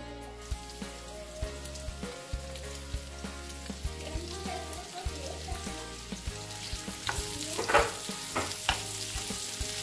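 Slices of Argentine chorizo and sausage sizzling in olive oil in a grill pan. Near the end a wooden spatula stirs them with a few quick strokes.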